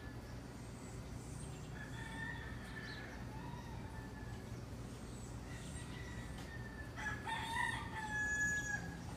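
Several roosters crowing back and forth from different distances, the earlier crows faint and far off, with a nearer, louder crow in the last two seconds.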